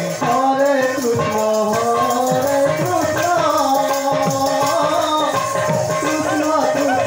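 Devotional kirtan music: a wavering melodic line over a steady, jingling, rattling percussion rhythm.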